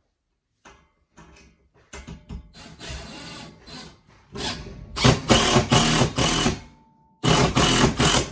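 Power drill driving screws into a wall stud: a few light clicks, then short runs of the motor, the longest and loudest about five seconds in and again near the end.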